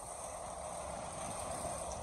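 Heavy earthmoving machinery running: a steady mechanical noise with a low rumble.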